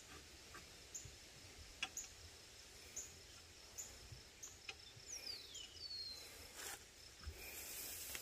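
Faint rural outdoor quiet with an insect chirping softly, a short high chirp repeating about once every second, and a single falling whistle about five seconds in.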